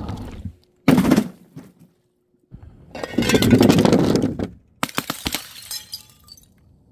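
Glass jars breaking on impact: a sharp knock about a second in, a longer loud clatter, then a run of sharp clicks and ringing as glass shatters and the shards clink.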